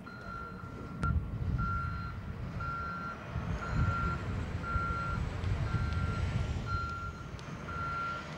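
Reversing alarm on a heavy vehicle beeping at one steady pitch a little more than once a second, over the low rumble of its engine, with a high whine that rises and later falls away.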